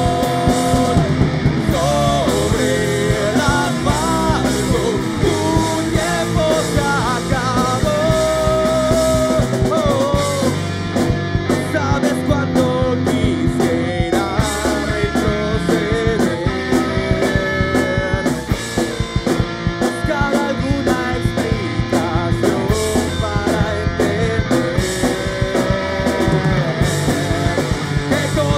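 Rock band playing live: electric guitar over a driving drum kit beat, with bending guitar lines.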